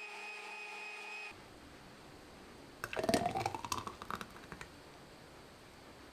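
Countertop blender's motor running with a steady whine, cutting off about a second in. Then green smoothie pours from the blender jug into a tall glass, the splashing rising in pitch as the glass fills.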